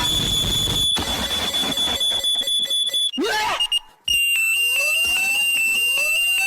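Electronic alarm sound: a steady high-pitched tone with a pulsing pattern. It breaks off about four seconds in and then comes back slightly lower, with rising whistle-like sweeps underneath.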